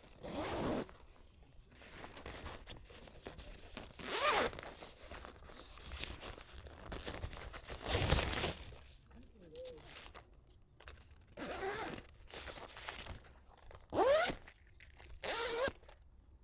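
A tent zipper being pulled in about six separate short strokes, a few seconds apart, some rising in pitch as they run.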